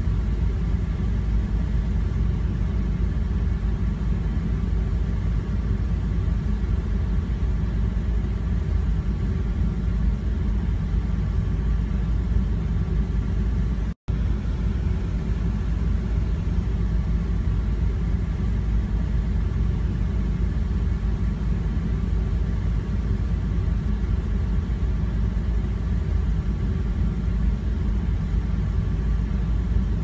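Steady low rumble of a car driving, heard from inside the cabin, with engine and road noise. It cuts out for an instant about halfway through.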